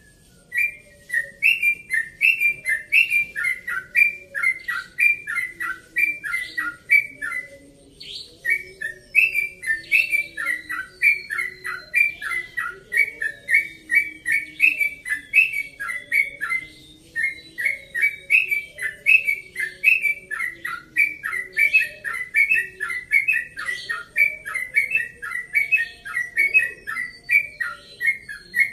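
Caged yellow-vented bulbul (trucukan) singing its rapid rolling 'ropel' song: a fast, nearly unbroken string of short whistled notes, about two to three a second, with brief pauses about seven seconds in and again around seventeen seconds.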